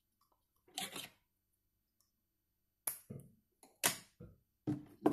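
A handful of short, sharp clicks and taps from snipping and handling thin coloured craft wire with small hand tools: one about a second in, then several close together in the last two seconds.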